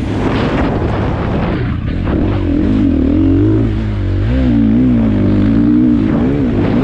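Dirt bike engine being ridden, its note rising and falling continually as the throttle is worked.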